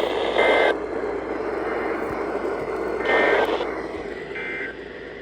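Emergency Alert System digital data bursts, the end-of-message code: three short two-tone warbles, about half a second, three seconds and four and a half seconds in, over loud radio static hiss that drops out after the first burst.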